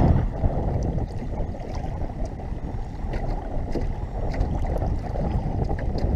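Wind buffeting the microphone and choppy water slapping against a small Gheenoe skiff's hull, a dense rumbling noise with scattered small splashes and knocks.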